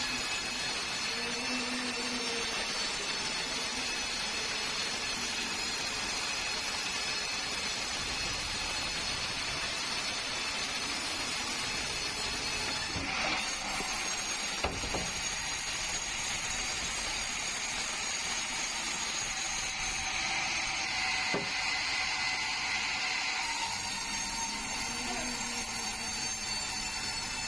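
Sawmill blade running through a bengkirai hardwood log, a steady sawing whine with high ringing tones. It grows brighter for a few seconds past the middle, and there is one sharp knock about halfway through.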